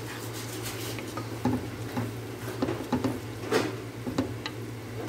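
Wooden spoon stirring a wet grain-and-chicken mixture, just loosened with milk, in a cooking pot, with irregular scrapes and knocks against the pot.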